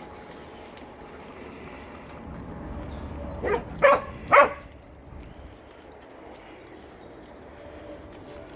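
A dog barks three times in quick succession, about three and a half seconds in.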